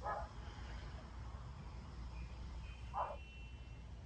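Quiet rural outdoor ambience: a steady low hum, two brief soft noises (one at the start, one about three seconds in), and a faint, thin high call just before the second.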